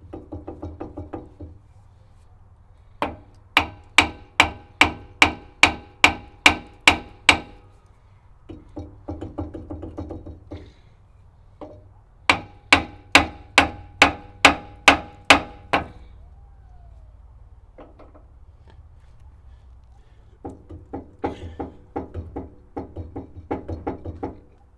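Copper hammer striking a grinder's pivot shaft, driving it out of its cast-iron base. Two runs of hard, ringing blows come about two a second, with runs of quicker, lighter taps between them. The shaft is working loose.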